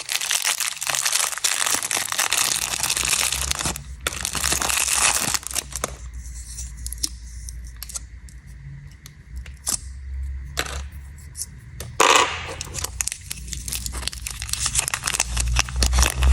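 Snack packaging being torn open and crinkled, dense crackling rustle that eases off for a few seconds midway, with a few sharp clicks, before the crinkling picks up again.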